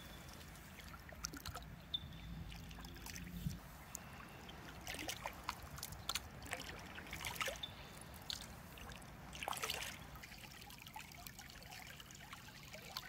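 Kayak paddle blades dipping and dripping into river water in irregular splashes, over the faint trickle of flowing current.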